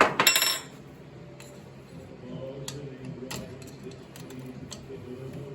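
Metal clanking from hammer and pry-bar work on a tractor's front axle hub: a loud clank with a brief rattling ring at the start, then a few light metal taps and clicks.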